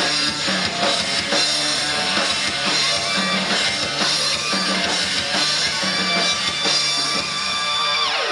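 Live rock band playing: a driving drum kit beat under distorted electric guitars, loud and heard from the audience. The drum beat drops out near the end while the guitars keep ringing.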